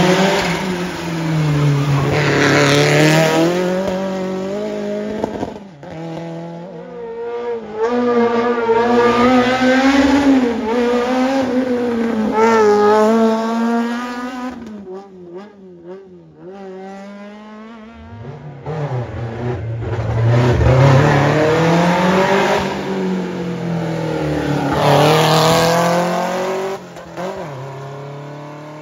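Historic competition cars driven hard, engines revving up and dropping back again and again with gear changes. The sound comes in three loud stretches, with a lull about halfway, and fades near the end.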